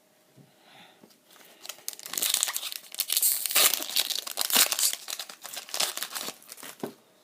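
Foil wrapper of a Pokémon trading card booster pack being torn open and crinkled: a dense run of crinkling and tearing that starts about a second and a half in and thins out near the end.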